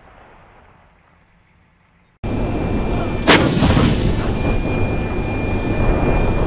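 An M109A6 Paladin 155 mm self-propelled howitzer firing a single round: one sharp blast about three seconds in. The blast sits over a loud steady rumble with a thin high tone, which starts abruptly about a second before the shot.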